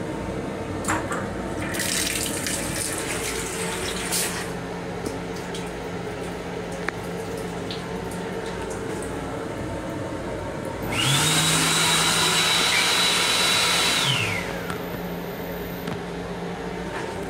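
Faucet water splashing into a train-restroom sink over the steady hum of the running M7 railcar. About eleven seconds in, the loudest sound starts: the sink unit's hand-dryer blower comes on with a high whine, runs for about three seconds and then winds down.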